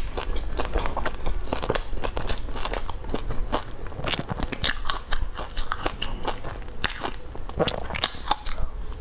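Close-miked chewing and biting of a soft cream-filled pastry coated in shredded floss and seaweed, with many small, irregular crunches and clicks.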